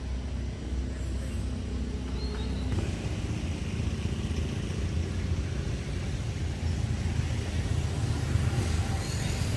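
A steady low engine rumble, like a vehicle's motor running nearby, with a slight change in its tone a little under three seconds in.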